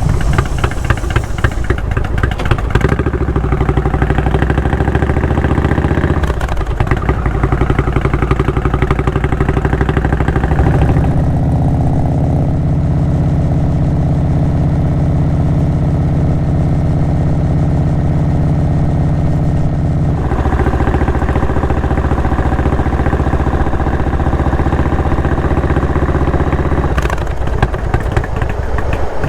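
Indian Springfield's V-twin engine running through a Freedom Performance aftermarket exhaust, a loud, steady note. The note changes abruptly several times.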